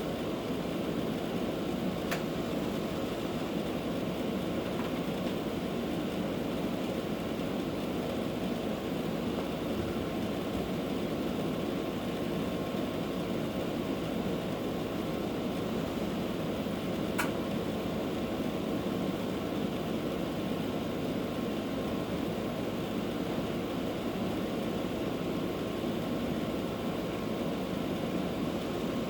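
Vacuum cleaner running steadily, a constant motor hum with a faint steady whine, broken by two brief clicks.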